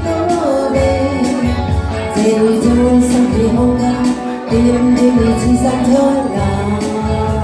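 A song: a voice singing long held notes over instrumental backing with a steady low beat.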